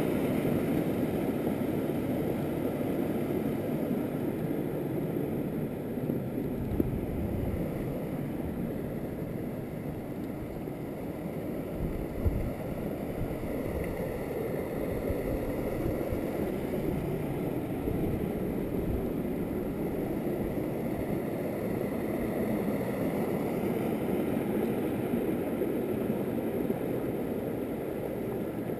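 Steady rushing of a small stream spilling over rock cascades, with occasional low thumps, the sharpest about twelve seconds in.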